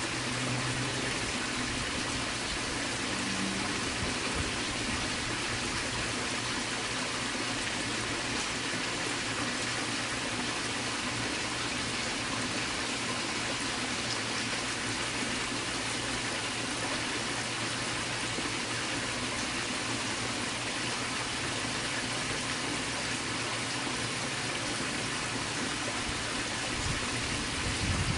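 Steady rushing background noise with a low hum underneath, and a few low thumps near the end.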